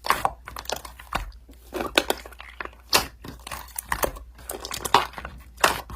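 Slime being squished and poked by hand, giving a run of irregular sharp clicking and crackling pops, several a second.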